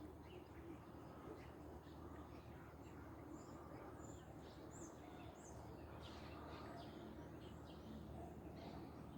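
Faint birds chirping: many short, high calls over a low, steady background hum.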